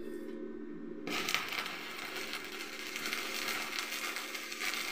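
Stick arc welding on a steel window grill: the arc strikes about a second in and crackles and sputters steadily, then stops just after the end, over a steady low hum.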